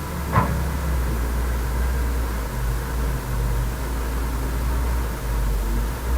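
Heavy earth-moving machinery's engine running steadily with a low rumble. A single short, sharp knock sounds about half a second in.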